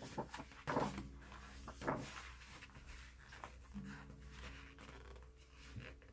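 Pages of a large art book being handled: paper rustling and brushing as a page is turned and pressed flat, with two short louder rustles in the first two seconds.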